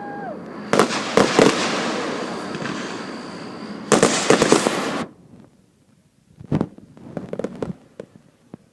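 Fireworks going off: dense crackling with sharp bangs and a loud volley about four seconds in, which cuts off suddenly around five seconds in. A few fainter pops follow.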